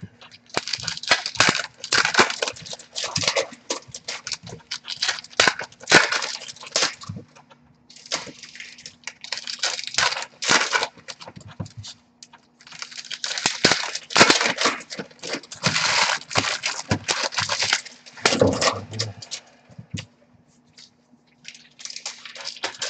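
Wrappers on baseball card boxes and packs being torn open and crinkled: quick repeated rips and crackles in clusters with short pauses. A faint steady hum runs underneath.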